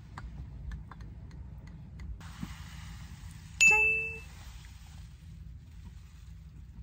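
A single bright bell-like ding, an edited sound effect, rings out about three and a half seconds in and dies away within about half a second.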